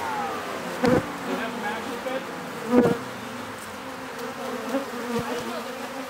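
Buzzing of a calm honey bee colony on exposed comb, a steady hum. In the first second a vacuum motor's whine falls in pitch as it winds down, and there are two loud knocks, about one second and three seconds in.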